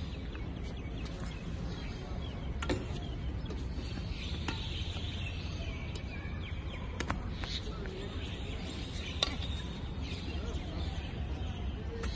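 Badminton racket strings hitting a shuttlecock in a rally: about five sharp taps spaced two to three seconds apart, over a steady low outdoor rumble.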